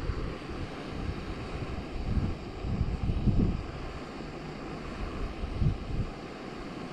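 Backpacking canister gas stove burner running at full power, a steady roar, with gusts of wind on the microphone.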